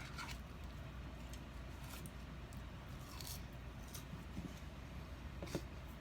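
Faint eating sounds: a few soft clicks and squishy mouth and food-handling noises over quiet room tone.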